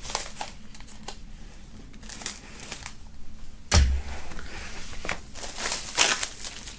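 Clear plastic shrink-wrap on a vinyl LP jacket crinkling and rustling as it is slit open and pulled off. There is one sharp knock about four seconds in.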